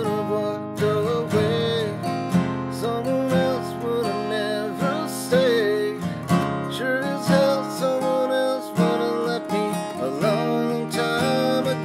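Acoustic guitar strummed in a steady rhythm, with chords ringing and a melody line moving over them.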